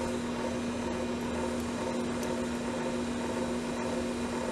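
Steady electrical-mechanical hum: a constant low tone with a hiss over it, like a small fan or motor running. It does not change.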